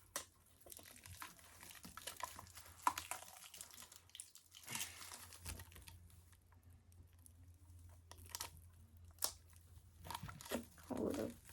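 Packaging being unwrapped and handled: faint, irregular rustling, crinkling and tearing, with scattered small clicks.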